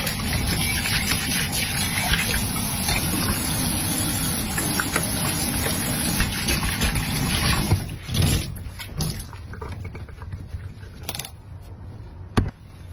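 Kitchen tap water running steadily while dishes are washed, cut off about eight seconds in; a few short clicks and knocks of dishes follow, the sharpest near the end.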